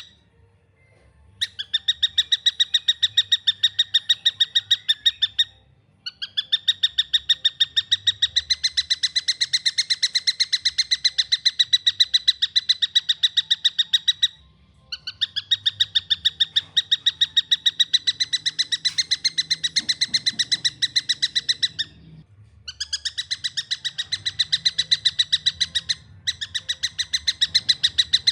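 Young tengkek buto (stork-billed kingfisher) calling in long, fast runs of evenly repeated shrill notes, about six a second, in several bouts broken by brief pauses.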